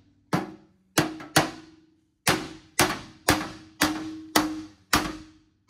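Hammer blows striking a steel bumper, about ten sharp metallic strikes that settle into roughly two a second, each one ringing briefly.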